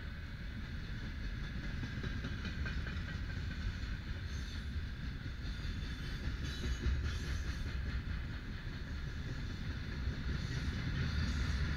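Wagons of a mixed freight train (gondolas, boxcars, tank cars) rolling past on steel rails: a steady heavy wheel rumble with recurring bursts of rattling clatter as the bogies go by.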